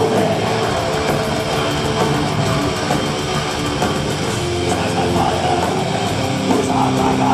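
Live black metal band playing loud, distorted electric guitars in a riff of held, changing notes, heard from within the audience.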